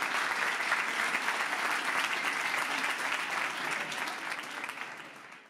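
Audience applauding, with dense clapping that fades out over the last second or so.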